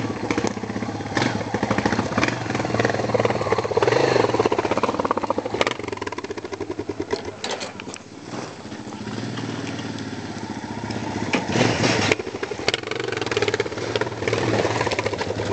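Off-road motorcycle engine running hard on a rough climb, its pitch and loudness rising and falling as the throttle is worked, dropping back about halfway through and picking up again near the end.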